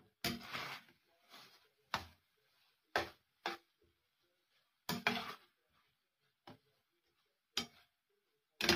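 Spatula scraping and knocking against a stainless-steel pan while stirring beef strips and onion: separate short strokes at an irregular pace of about one a second.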